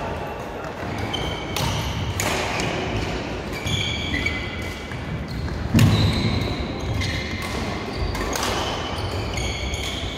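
Badminton rallies in a large, echoing hall: sharp racket strikes on shuttlecocks at irregular intervals, and short high shoe squeaks on the court mats. The loudest sound is a thump about six seconds in.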